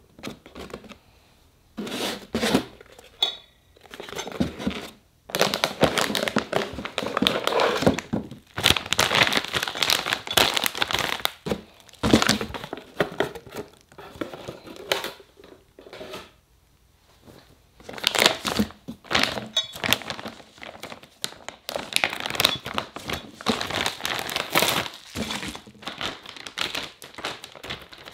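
Cardboard box and clear plastic packaging being opened and handled by hand: irregular crinkling and rustling in bursts with short quiet pauses, busiest in two long stretches.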